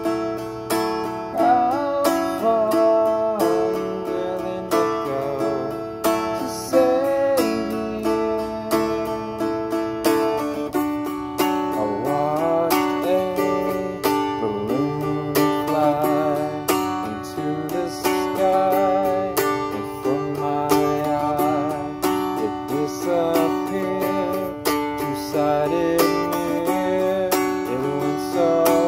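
A man singing with vibrato over a strummed mountain dulcimer, with a steady low drone under the tune. The dulcimer is cracked and, in its player's words, barely holds a tune.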